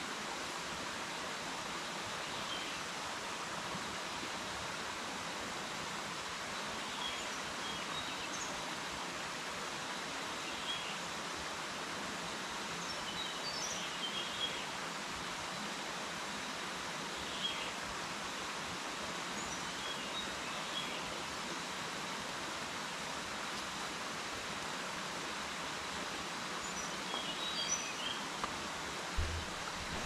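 Steady rush of a jungle river running over rocks, with short bird chirps every few seconds and a soft thump near the end.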